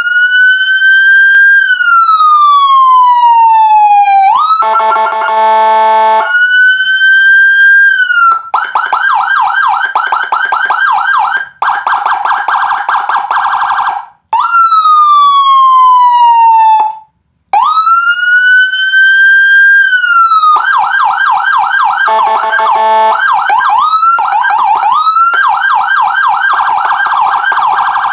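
Electronic siren module played through a TOA horn loudspeaker, cycling through Whelen HHS-style tones. It gives slow wails that rise and then fall away, fast yelps of several sweeps a second, and short stretches of a steady horn-like tone. The sound cuts out briefly a couple of times as it switches tones.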